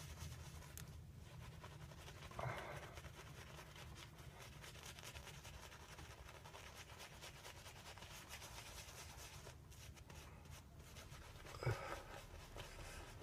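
Faint scratchy swishing of a silver tip badger shaving brush working lather into about two weeks' growth of beard, with two brief soft sounds, one a few seconds in and a slightly louder one near the end.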